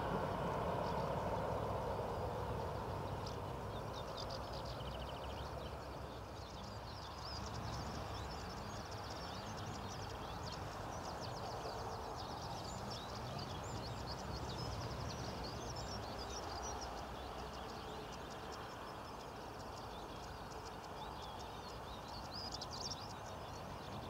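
A small songbird sings a fast, scratchy run of short high notes, on and off, over steady low background noise.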